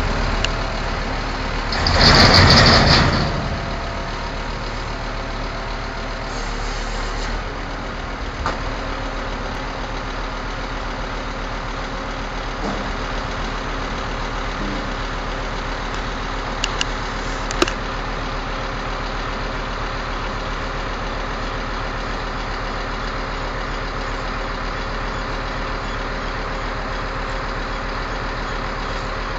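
Scania P230 skip-loader truck's diesel engine running steadily while its hydraulic arms lift a skip container. A loud hiss comes about two seconds in, and a few sharp clanks a little past halfway.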